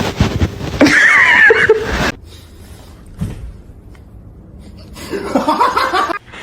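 A person laughing in two bouts: a loud one in the first two seconds and a shorter one about five seconds in.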